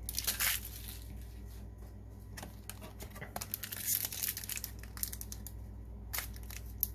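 Foil booster-pack wrapper crinkling and rustling in irregular bursts as it is handled, loudest about half a second in, around four seconds in and near the end.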